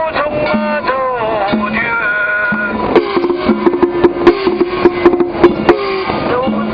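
Traditional Chinese festival music: a melody of gliding, bending notes. About halfway through comes a run of sharp, irregular percussion strikes over one held note, after which the melody returns.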